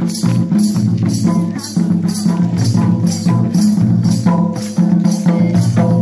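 Folk dance music: barrel drums beaten in a steady, even rhythm of about two and a half strokes a second, with a jingling rattle on each beat and a held melody line over it.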